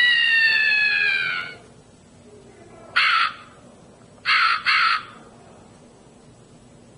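Pocket horror sound-effects box playing recorded effects through its small speaker: the tail of a scream, falling in pitch and ending about a second and a half in, then a crow cawing once, and twice more a second later.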